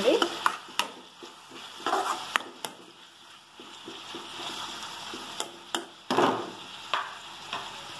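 Steel ladle scraping and clicking against a steel kadai as sliced onions, tomatoes and green chillies are stirred in hot oil, over a soft sizzle. About seven sharp clicks are spread unevenly through.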